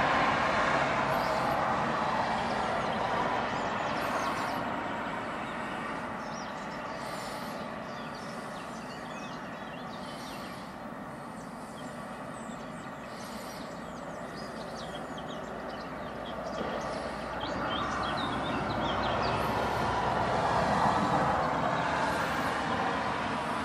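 Road traffic passing in the distance, a rushing noise that swells, fades and swells again near the end. High, thin bird calls repeat over it about every second and a half, with scattered chirps.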